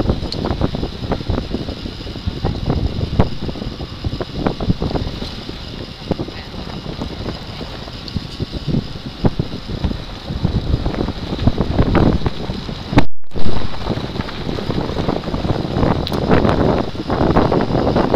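Wind buffeting the microphone of a handheld gimbal camera on a car moving along a bumpy dirt road, mixed with the car's rumble and many knocks and clicks from the rough ride. The sound cuts out for a moment about thirteen seconds in.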